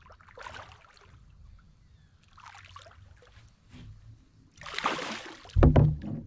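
Water splashing and sloshing against a kayak in short bursts as a hooked blue catfish fights near the boat, with a heavy low thump near the end.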